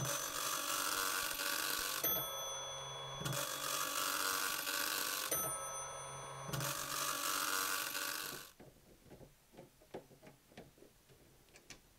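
A 1979 Teletype Model 43 teleprinter running its print test: the dot-matrix impact print head rattles out three lines of about two seconds each, with shorter, quieter gaps between lines. The printing stops about eight and a half seconds in, and a few faint clicks follow.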